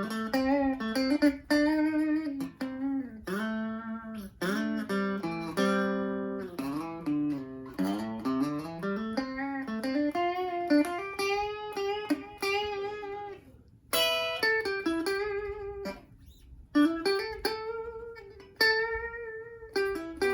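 FireFly FFTL Telecaster-style electric guitar on the middle pickup setting, played through a small Blackstar amp: picked single-note lines and chords, with a couple of brief pauses.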